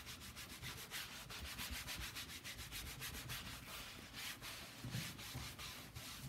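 A wide dyeing brush swept quickly back and forth over stretched cloth: the bristles swish and rub in a fast, even run of strokes as the dye is brushed on by hand (hikizome).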